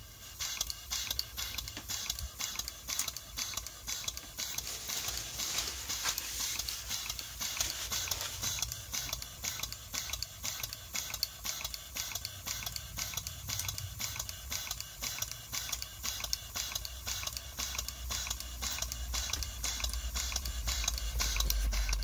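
Stuart Turner No 4 model steam engine running with a fast, even beat of exhaust puffs; a low rumble grows louder near the end.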